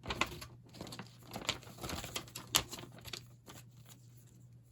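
Irregular rustling and light clicks of paper and packaging being handled, over a steady low hum.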